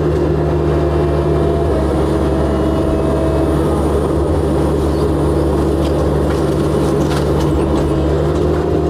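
Excavator's diesel engine running steadily under load, with a few short sharp cracks of debris being broken about six to seven seconds in.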